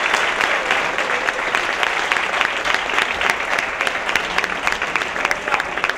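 Theatre audience applauding: dense, many-handed clapping that eases slightly toward the end.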